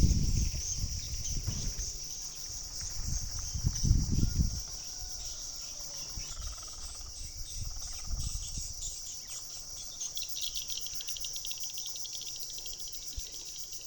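Insects chirping in a steady high-pitched chorus that grows denser near the end. Low rumbling thumps come in the first few seconds, loudest about four seconds in.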